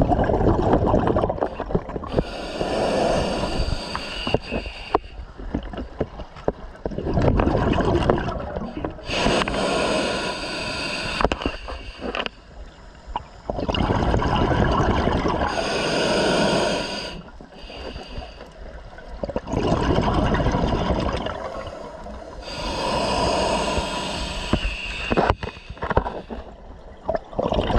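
Scuba diver breathing through an open-circuit regulator underwater: several slow breaths, each a hissing inhale through the regulator and a gush of exhaled bubbles.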